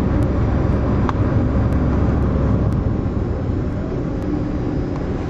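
Ferry's engines running during docking, a steady low rumble with a hum, easing a little about halfway through.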